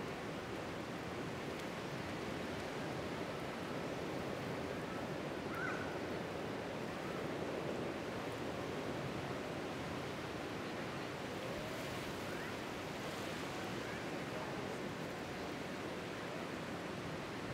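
Ocean surf washing and breaking on a shallow beach: a steady rushing wash of waves.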